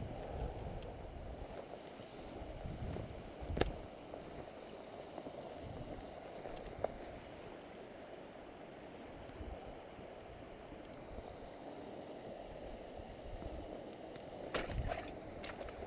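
Steady rush of a river flowing past the bank. A few sharp clicks and knocks cut through it, clustered near the end.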